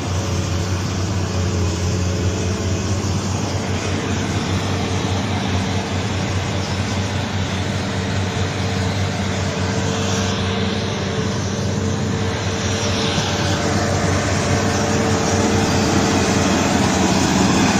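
Heavy diesel engine running steadily with a low, even drone, a little louder near the end.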